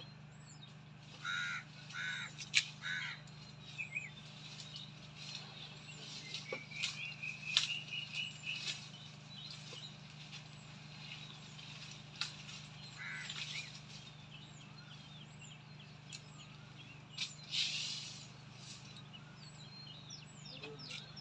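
Crows cawing: a run of four short caws about a second in and another short run later, with other birds chirping and one trilling. Sharp snaps and a brief rustle now and then, over a faint steady low hum.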